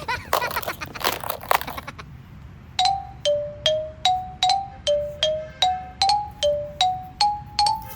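A brief noisy sound effect, then a simple jingle-like melody of about a dozen short, separate notes, roughly two and a half a second, stepping up and down in pitch.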